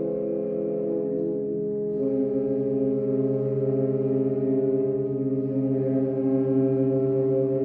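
Saxophone ensemble of soprano, alto, tenor and baritone saxophones playing sustained chords. The chord changes about two seconds in, and the lower notes pulse under the held upper notes.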